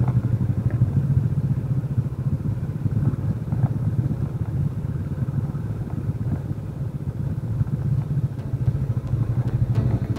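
Motorcycle engine running steadily while riding, a low, even engine note.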